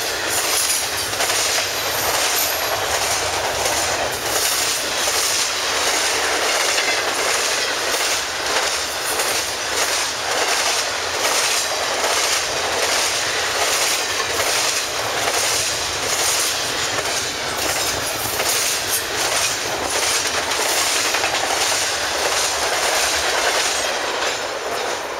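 Intermodal freight cars rolling past at speed: a steady rush of steel wheels on rail with rapid, continuous clickety-clack as the trucks cross rail joints, a little quieter near the end as the last cars go by.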